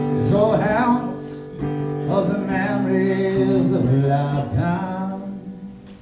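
Live acoustic guitar and male singing at the close of a country song, sustained held notes with the last chord fading out near the end.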